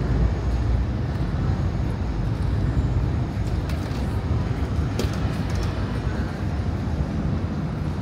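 Outdoor city ambience: a steady low rumble with a few faint clicks about halfway through.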